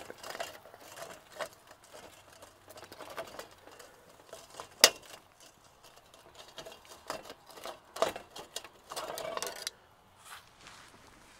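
Metal barbecue tongs clicking and scraping as a whole fish is handled on a charcoal grill grate: scattered light clicks, one sharp click about five seconds in, and a short scrape about nine seconds in.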